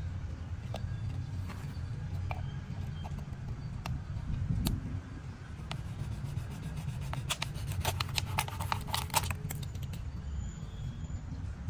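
Kitchen knife scraping and sawing through the neck of a plastic water bottle on a wooden board: scattered clicks of the plastic being handled, then a quick run of short scratchy strokes about seven seconds in as the blade cuts through, over a steady low rumble.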